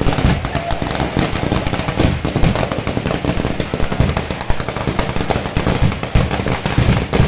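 Ground-level festival fireworks going off in a dense, continuous crackle of rapid bangs, with no pause.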